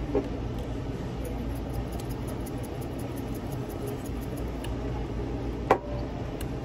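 A small glass spice shaker with a metal cap set down on a table: one sharp clack with a brief ring near the end, over a steady low room hum.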